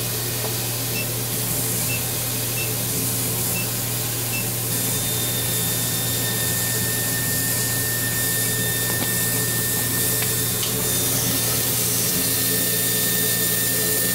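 Laser cutter cutting 3 mm plywood: a steady hiss and low hum of the running machine, with a few short high peeps early on and then a thin, steady high-pitched whistle setting in about five seconds in. The owner blames the squeal on the laser tube's chiller having old distilled water topped up with tap water.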